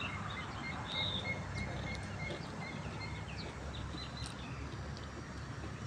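Small birds chirping in short, repeated notes over steady low background noise.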